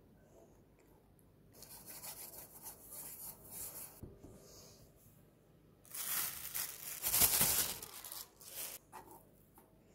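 A hand rubbing oil over a metal pizza pan, a soft swishing, then louder crinkling of plastic wrap about six seconds in as the dough is unwrapped and set in the pan.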